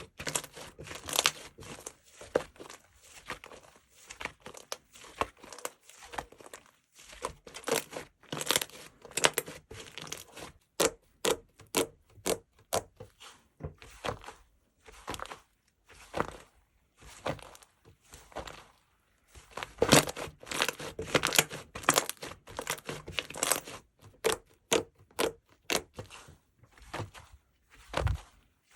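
Slime being squished and stretched by hand, making irregular sticky pops, clicks and crackles in quick clusters.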